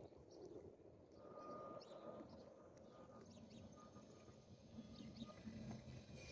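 Near silence: faint outdoor ambience with scattered small bird chirps, and a thin steady tone from about a second in to about five seconds.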